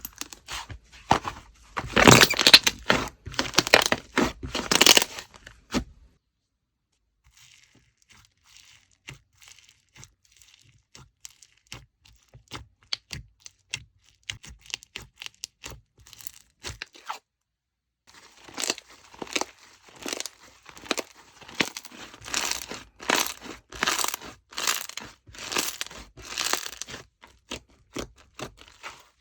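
Watermelon slime being squeezed and worked by hand, giving sharp crackling pops and clicks. The clicking is dense and loud for the first few seconds, thins to scattered faint clicks, and grows dense again after about 18 seconds.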